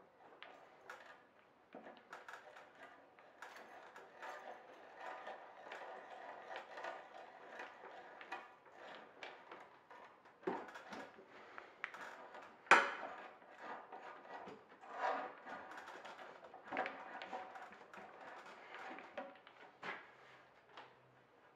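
Hand brace and auger bit boring into a hardwood merbau board: a steady crunching of the cutting, full of small clicks, with one sharp knock a little past halfway. It goes quiet near the end.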